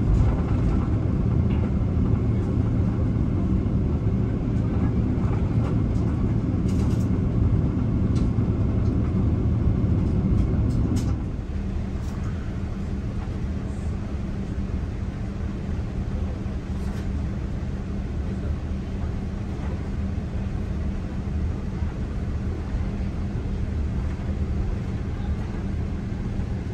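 Steady low cabin rumble of a Boeing 777-300ER taxiing, with a constant hum from its GE90 engines. About eleven seconds in it drops to a quieter, lower rumble.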